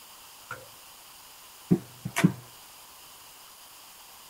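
Hard plastic clicks and knocks as the nozzle tube is pushed onto the outlet of a plastic snail-shell blower adapter and the unit is handled: a light click about half a second in, then three sharp knocks close together around two seconds in.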